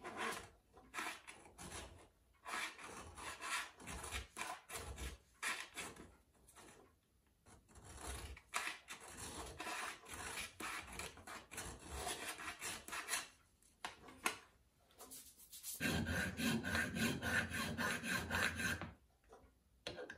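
Hand filing of a small metal watch-case part with a flat file: short, uneven rasping strokes, then about three seconds of steadier, louder filing near the end.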